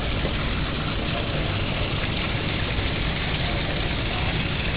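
Steady splashing wash of water from a small solar-powered pump's hose running out onto paving, over a low steady rumble.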